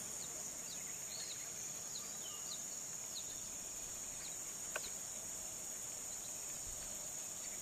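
Outdoor insect chorus: a steady high-pitched drone of crickets or cicadas, with short high chirps repeating about twice a second over the first few seconds and a single sharp click just past the middle.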